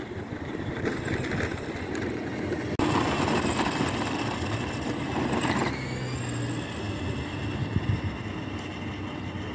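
Outdoor street ambience: a steady hum of traffic and vehicles, with no speech. The sound jumps suddenly louder about three seconds in and is fullest through the middle before settling back.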